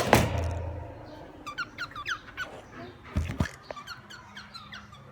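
Pet parrots chirping: a run of short, falling, squeaky chirps, several a second. A knock comes right at the start and another a little past the middle.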